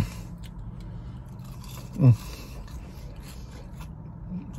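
A man chewing a burger, with quiet mouth and biting sounds over a steady low hum, and a short falling hummed vocal sound about two seconds in.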